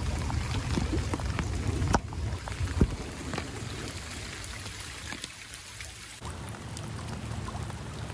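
Water sloshing and splashing as a person wades through flooded swamp water, with a few sharp splashes and a low rumble. It grows quieter after a few seconds and changes abruptly about six seconds in.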